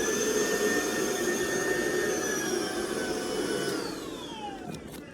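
Vacuum cleaner motor running with a high whine, then switched off about three and a half seconds in, its pitch falling as the motor winds down.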